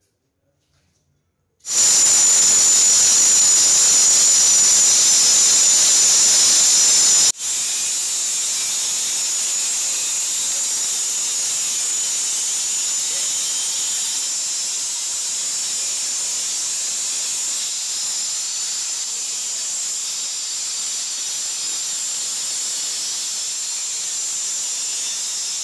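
Handheld electric stone cutter running at full speed as it cuts a vertical groove into a plastered wall, a loud steady high-pitched whine with hiss. It starts about two seconds in, breaks off for an instant about seven seconds in, then runs on a little quieter.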